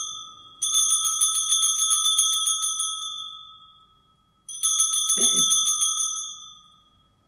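Altar bells rung at the elevation of the host during the consecration: two bursts of rapid, quick-stroked ringing, the first a little after the start and the second about four and a half seconds in, each fading away over a couple of seconds.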